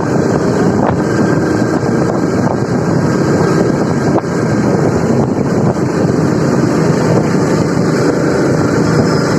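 Motorcycle engine running steadily while riding, with heavy wind buffeting the microphone.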